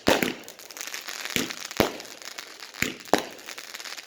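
Firework going off with a crackle and five sharp pops at uneven intervals, two of them close together near the end.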